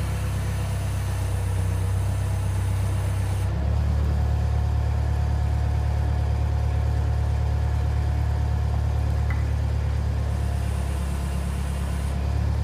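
Engine of an old Bobcat skid-steer loader running steadily while it lifts a load on its forks. About three and a half seconds in, the engine note drops lower and gets a little louder.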